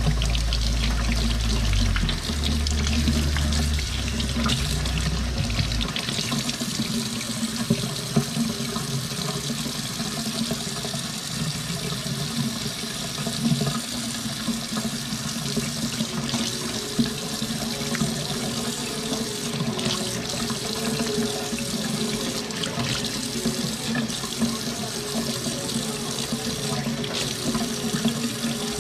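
Kitchen faucet running steadily into a stainless steel sink, the stream breaking over a snow crab cluster and hands as it is rinsed, with a few small clicks and knocks.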